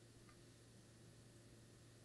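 Near silence: faint steady background hiss with a low hum.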